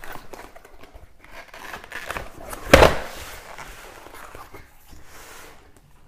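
Cardboard keyboard box being handled and opened: rustling and scraping of cardboard, with one loud thump a little under three seconds in.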